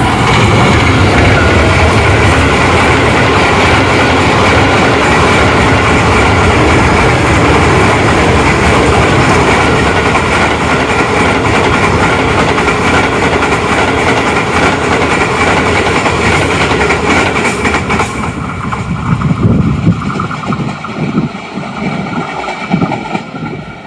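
Express passenger train (Green Line Express) passing through at high speed: a loud, steady rush and rattle of coach wheels on the rails. It thins after about eighteen seconds as the last coaches go by, leaving low gusts of wind from the train's wake.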